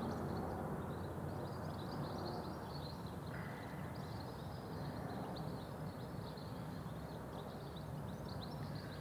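Wild birds chirping and twittering in a continuous scatter of short, high notes over a steady low background rumble.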